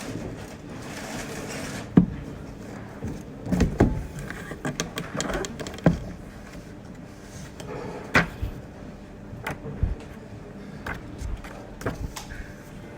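Small household handling sounds: a soft rustling hiss at the start, then a sharp click about two seconds in, followed by scattered knocks and clatters of objects being moved and set down.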